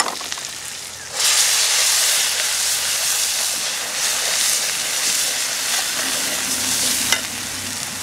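Onions and ground spices frying in hot oil in an aluminium karahi break into a loud, sudden hiss about a second in, as a wet ingredient goes into the pan. The hiss then settles into a steady sizzle while a steel spatula stirs the masala, and it eases slightly after a sharp click near the end.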